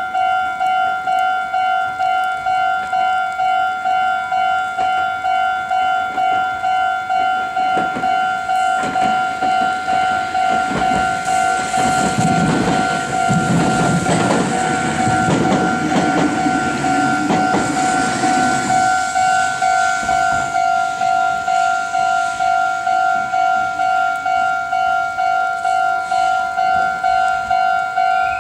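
Japanese level-crossing warning bell ringing at a quick, even beat throughout. A Meitetsu train passes through the crossing, its rumble and wheel clatter building about a third of the way in and fading out by about two-thirds.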